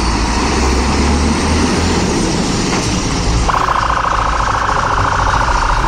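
A fire engine's diesel engine running with a low rumble as the truck pulls out and drives past. About three and a half seconds in, a harsh steady warning tone comes on and holds.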